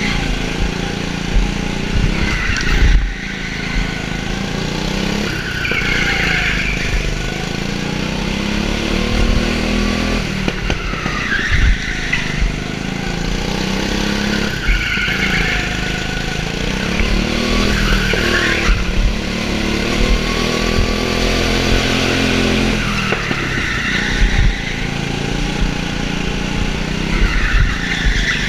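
Go-kart engine heard from the driver's helmet, revving up and dropping off again and again as the kart laps the track. Tyres squeal briefly at several points.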